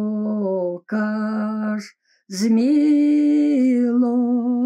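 A woman singing a slow, unaccompanied Polish-language Lutheran hymn-prayer, drawing each syllable out into a long held note. Two shorter notes, a short breath about two seconds in, then one long note held to the end.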